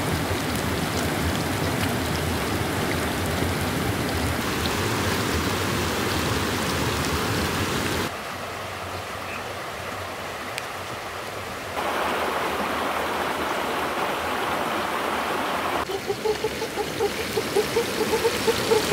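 Whole fish frying in hot oil in a wok over a wood fire, giving a steady, even sizzle. The sizzle gives way to a quieter hiss for a few seconds about 8 seconds in, then comes back. Near the end short squeaky sounds and uneven taps join in.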